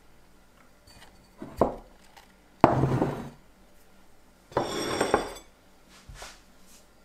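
Ceramic plate slid and set down on a wooden tabletop: a short knock, then two scraping passes, the second with a brief ringing clink of the plate.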